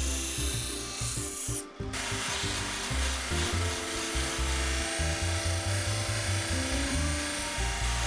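Steel balisong blade ground against a spinning grinding wheel, a steady hissing grind that breaks off abruptly about two seconds in; then a blade rubbed against a second spinning wheel, with background music underneath.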